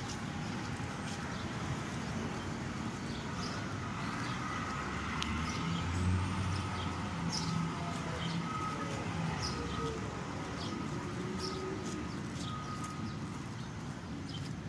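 City street traffic: cars and trucks running and passing, with a heavier engine rumble swelling about six seconds in. Short bird chirps repeat throughout.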